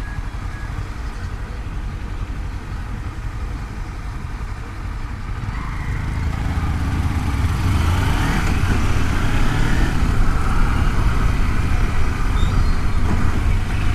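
Kawasaki Versys-X 300 parallel-twin engine running under way, with wind and road noise on a helmet microphone, growing louder about six seconds in.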